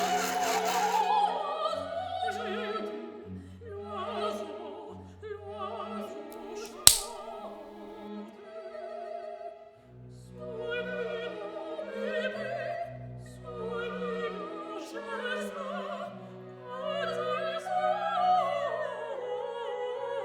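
Operatic singing with orchestral accompaniment: a wavering solo voice over sustained bass notes. A single sharp crack cuts in about seven seconds in.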